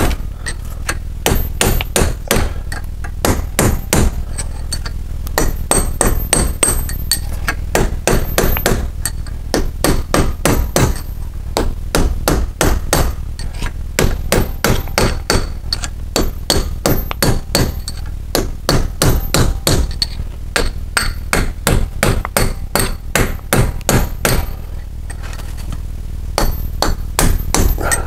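Hammer blows on metal, knocking an old steel bearing race out of its housing: a long run of sharp, ringing strikes, several a second, worked all the way around the race, with a few short pauses.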